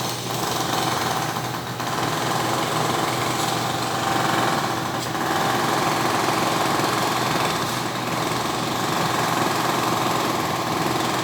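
Industrial air compressor running steadily: an even, loud machine drone with a low hum.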